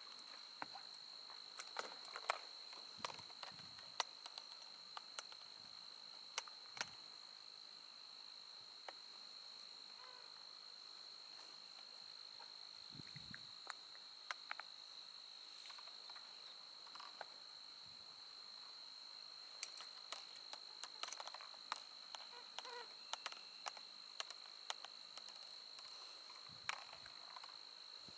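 Steady high-pitched trilling of an insect chorus, with scattered sharp clicks and ticks over it, bunched in the first few seconds and again in the second half.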